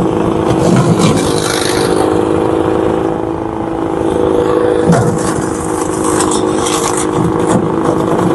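Engine-driven wood chipper-shredder running steadily under load, with scraping and crackling as farm waste is fed through and shredded.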